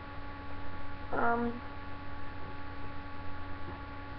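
Steady electrical hum made of several constant tones, with one brief voiced sound from a person about a second in.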